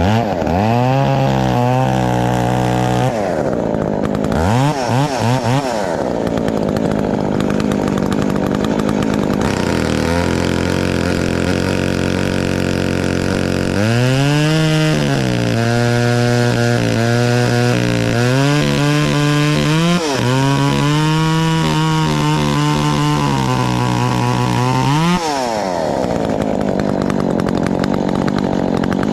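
Husqvarna 372 XP two-stroke chainsaw revved up and held at full speed several times, dropping back between runs: two short bursts in the first few seconds, then two long runs near the middle and end.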